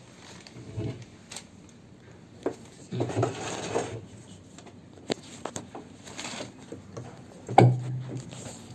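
Handling noise from the plastic outer tub of a dismantled front-loading washing machine: scattered knocks, clicks and scraping of plastic parts, with a louder knock near the end.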